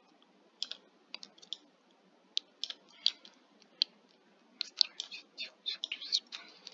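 Irregular clicks of a computer mouse and keyboard being worked, a few scattered at first, then bunching into a quick run of clicks about four and a half seconds in.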